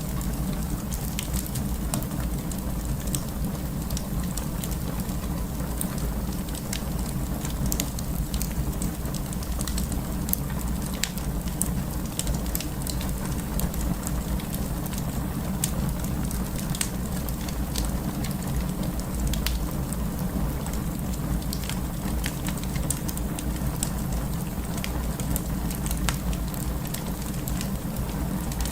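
Wood fire burning in a fireplace: irregular sharp crackles and pops from the burning wood over a steady low rumble.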